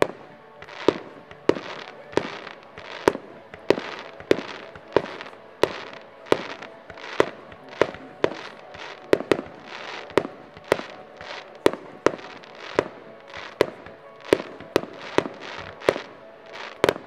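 A multi-shot fireworks battery (cake) firing shot after shot at an even pace, about three bangs every two seconds. Each shot bursts with a short crackle.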